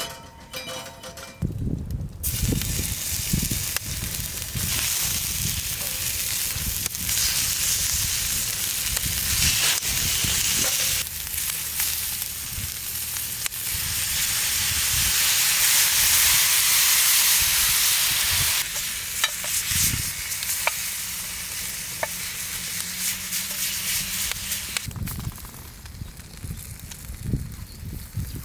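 Food sizzling in a hot pan: a dense sizzling hiss that starts about two seconds in, swells to its loudest midway, then eases off, with a few sharp crackles and low knocks along the way.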